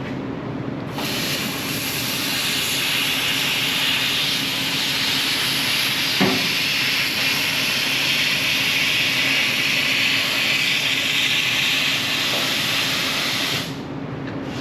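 Laser cutter cutting the sheet-steel body panel of a VW Bus: a steady hiss that starts about a second in and stops shortly before the end, over a low steady hum, with one short knock about six seconds in.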